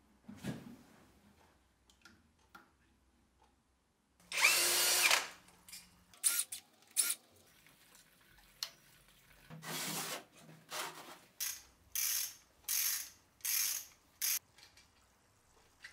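Tool work on a homemade rotary valve engine being taken apart: a loud whir of a power driver for about a second, a few sharp clicks, then a run of short ratcheting bursts.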